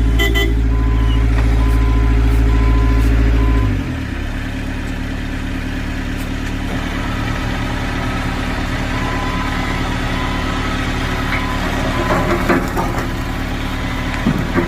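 Excavator's diesel engine running loud and steady at high revs, then dropping abruptly to a lower, steady running about four seconds in. A few knocks come near the end.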